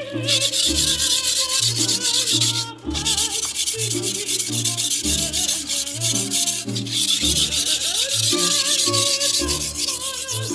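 Chef knife blade rubbed back and forth on a whetstone in quick, rapid strokes, a gritty scraping. It comes in three runs with two short pauses, about three seconds and six and a half seconds in.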